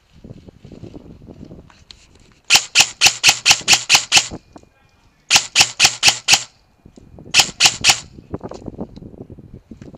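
VFC HK416 airsoft electric gun firing three quick strings of shots, about five a second: roughly ten, then six, then four. Softer rustling and knocking of handling noise comes before and after the strings.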